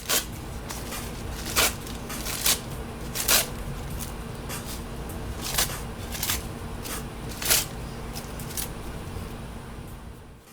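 Mulberry paper being torn by hand into pieces: a run of rustling and crinkling with sharp rips at irregular intervals, about one a second, over a faint steady hum.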